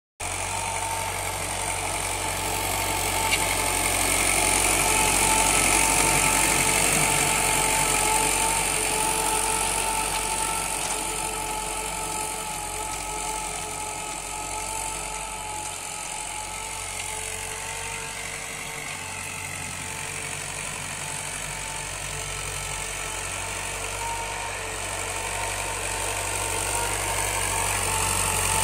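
A 1967 Belarus tractor's diesel engine running steadily under load as it pulls an 18-disc harrow through tilled soil. It grows louder near the end as the tractor comes close.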